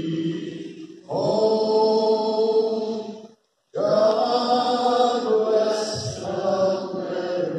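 A solo male voice singing slowly through a microphone and PA, in long held notes. There are two phrases, with a short break about three and a half seconds in.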